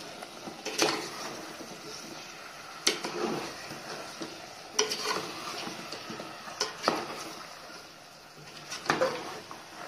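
Steel ladle stirring vegetables and masala in a pressure cooker, scraping and knocking against the metal pot about six times at irregular intervals, over a steady low sizzle of the masala frying.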